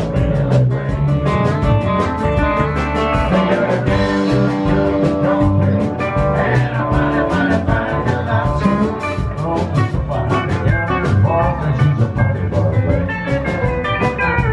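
Live country band playing with a steady beat: electric guitar, pedal steel guitar, upright bass and drums.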